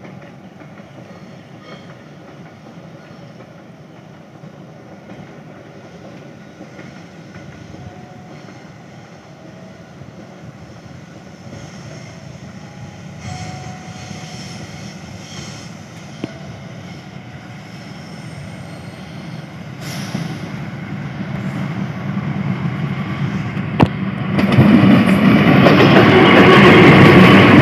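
KAI CC 206 diesel-electric locomotive approaching with a passenger train, its running growing steadily louder and loudest near the end as it passes close by.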